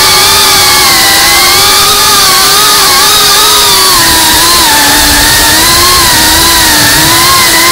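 GEPRC CineLog35 FPV quadcopter's motors and propellers whining continuously, the pitch wavering with throttle, dipping lower in the middle and climbing again near the end, as picked up by the camera on the drone.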